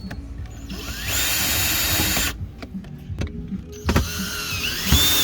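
A small electric motor whines in two runs, the first about a second long and the second nearly two seconds, its pitch rising and dipping as it speeds up and slows. A few short knocks come in between.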